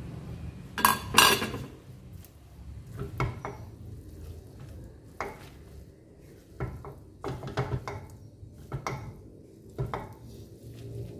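Spatula scraping and knocking against a non-stick wok while tossing stir-fried instant noodles, in irregular strokes, the loudest about a second in.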